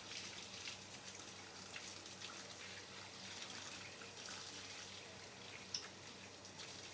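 Water running and splashing with small irregular drips as a baby monkey is bathed, in a small room. A brief high squeak about six seconds in.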